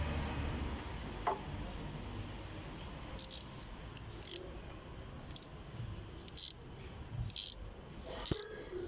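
Metal hand tools clicking and scraping at an engine's bolt hole during thread tapping: short, sharp clicks at irregular intervals, roughly one every second, over a low steady background.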